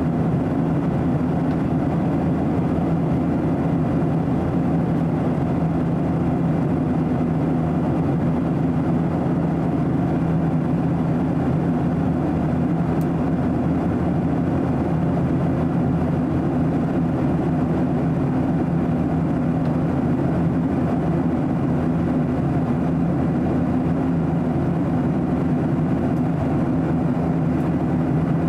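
Steady cabin noise inside a Boeing 737-800 in flight: the low drone of its CFM56-7B turbofan engines mixed with the rush of air past the fuselage, even and unchanging throughout.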